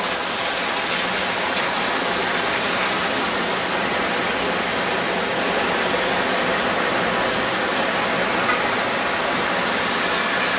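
Steady city street traffic noise, with cars driving past.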